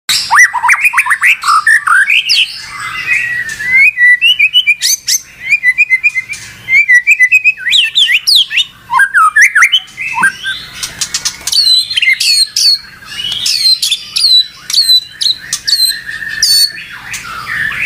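White-rumped shama (murai batu) singing loudly and without a break: a fast, varied run of whistles, chirps and trills, with a string of repeated sharp high notes in the second half.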